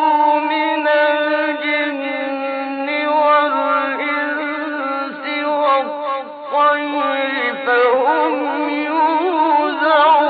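A male Quran reciter chanting in the slow, melodic tajweed style. His solo voice draws out a long held note, then moves through shorter syllables, and from about eight seconds in the pitch wavers in ornamented turns.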